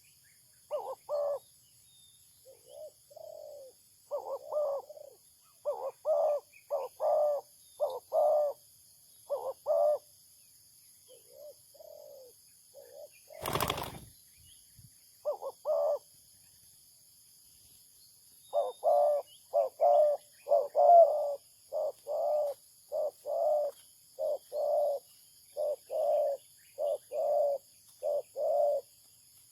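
Spotted dove cooing: phrases of short, low coo notes repeated again and again, more densely in the second half, with a single sharp knock about halfway through.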